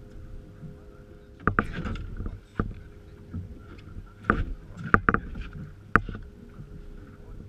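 A series of sharp knocks and bumps on a fiberglass fishing boat, about six of them, irregularly spaced, as people move about and handle gear on deck. A faint steady hum runs underneath.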